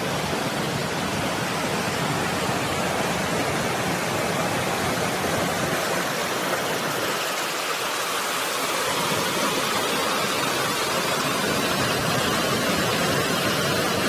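Steady rush of a river pouring over rocks at a small waterfall, an even, unbroken hiss of white water.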